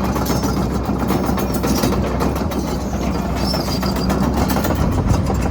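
Kobelco SK210LC-9 excavator's Hino diesel engine running with a steady low hum.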